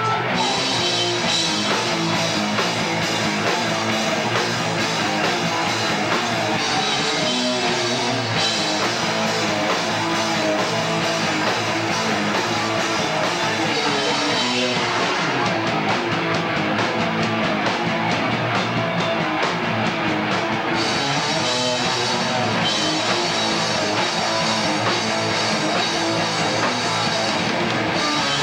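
A loud live punk rock band playing electric guitar, bass and drum kit, recorded from among the crowd. The top end thins for a few seconds past the middle, then the full sound returns.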